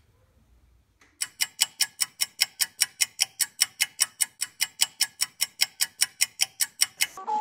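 A rapid, even run of sharp ticks, about five a second, starting about a second in and cutting off suddenly near the end.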